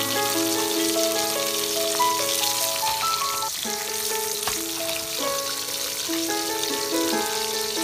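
Whole fish sizzling steadily as they fry in hot oil in a steel wok, with background music of held notes playing over it.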